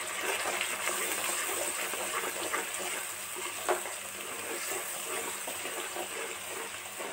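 Onion, tomato and spice masala frying in oil in a metal karahi: a steady sizzle, with light scrapes from a spatula stirring it.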